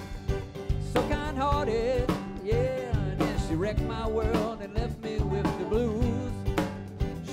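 Band music with a steady drum beat and bass under a wavering lead melody.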